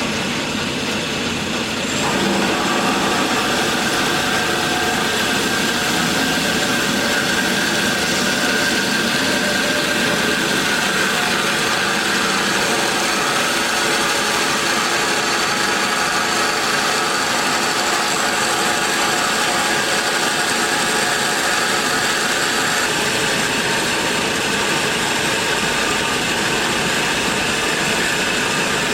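Kalamazoo 13AW horizontal band saw running with a steady mechanical whir, growing louder about two seconds in.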